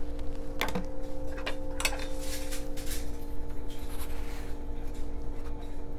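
A spoon scraping and clicking inside a can of powdered limeade mix as two teaspoons are measured out: a few short scrapes in the first three seconds, then only a steady low hum.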